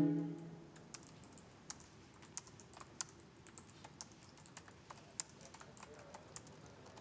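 Typing on a laptop keyboard: faint, irregular keystroke clicks, a few a second. A low bowed-string music note dies away at the very start.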